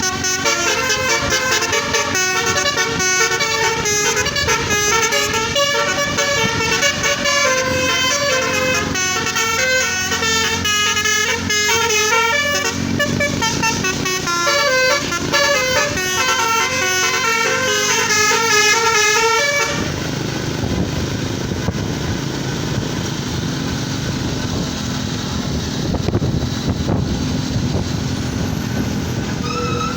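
Basuri-type telolet musical horn on a vehicle playing a long, fast melody of loud stepping notes, cutting off about twenty seconds in. After that, vehicle engine and road noise.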